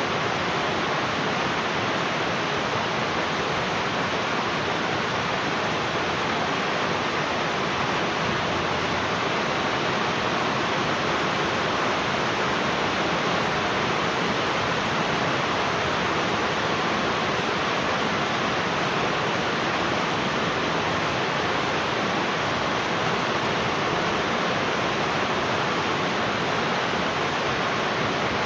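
Heavy rain falling steadily, a dense even hiss with no separate drops or gusts standing out.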